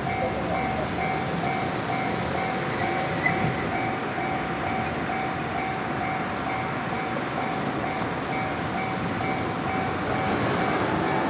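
Japanese level-crossing warning alarm ringing in a steady, evenly repeating pattern over the rumble of a passing train on the JR Tokaido Main Line.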